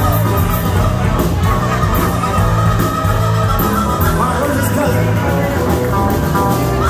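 Live band playing an upbeat rock tune: electric guitars, bass and drums, with a saxophone taking a melodic line.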